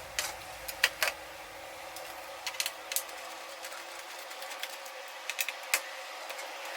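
Scattered sharp plastic clicks and taps, some in quick pairs, over a steady hiss: a laptop being handled and pried at while its keyboard is taken off.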